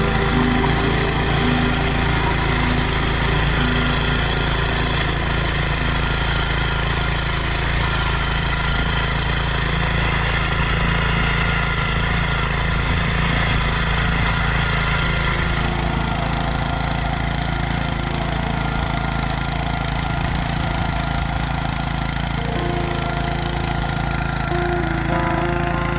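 Honda GX160 single-cylinder four-stroke petrol engine of a Tasco BK 55H mini tiller running steadily, with a change in its sound about two-thirds of the way through.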